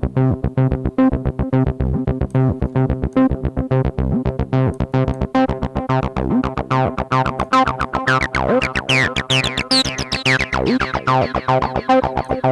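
Acid bassline from a software TB-303 emulation (ABL3), a fast run of notes with slides and accents, played through a delay and a one-knob acid distortion plugin. From about six seconds in it turns brighter and grittier, with sweeping overtones as the distortion is dialled up, and it eases back again near the end.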